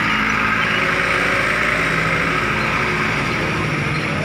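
A truck engine idling, a steady, loud running sound with a low hum.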